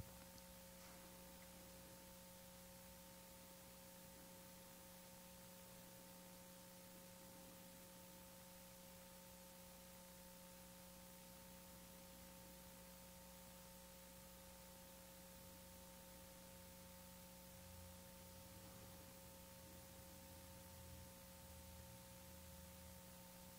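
Near silence: room tone with a faint steady electrical hum and hiss.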